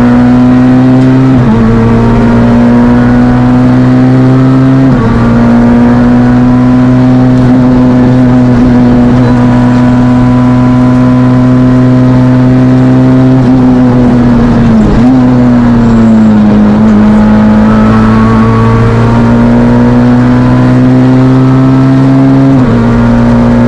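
Fiat Panda Kit Car rally engine running hard under load, heard from inside the car: a loud, steady high-revving tone that drops in pitch briefly at gear changes about a second and a half in and again around five seconds. A deeper dip about fourteen seconds in is followed by a slow climb back up.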